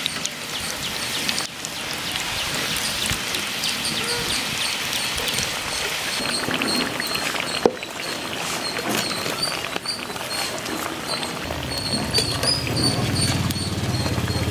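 Potli samosas deep-frying in hot oil in an iron kadai: a steady sizzle and bubbling hiss, with metal skimmer and slotted spatula scraping and ticking against the pan and one sharp knock a little past halfway. A low hum comes in near the end.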